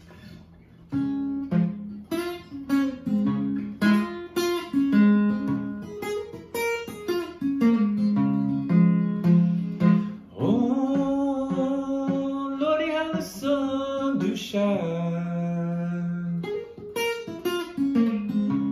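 Acoustic guitar played fingerstyle in a country-blues pattern, single picked notes and bass runs starting about a second in. From about ten seconds in, a man's voice joins with a long wordless moan over the guitar for a few seconds.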